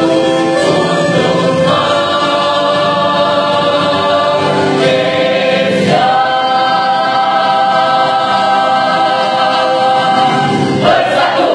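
A mixed choir of women and men singing together, holding long notes that move to new pitches every few seconds.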